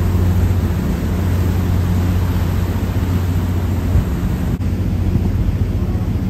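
Passenger ship's engine running steadily, a low drone over a constant rushing hiss. The sound drops out for an instant a little past halfway.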